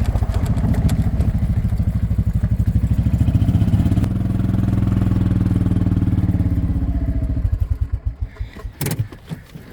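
Small gas golf cart engine running while driving, with a fast regular chugging. It winds down and stops about three-quarters of the way in, followed by a short clunk near the end.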